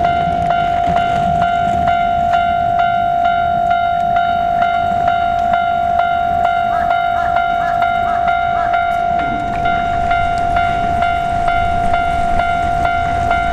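Japanese railroad crossing warning bell ringing, a steady pitched tone struck over and over in a fast, even rhythm.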